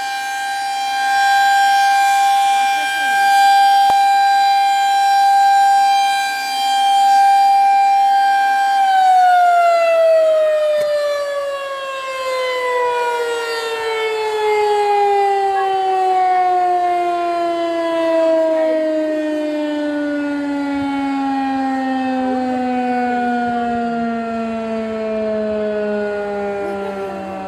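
Tornado warning siren sounding a steady tone that swells and fades every few seconds. About nine seconds in it begins winding down, its pitch falling slowly and steadily.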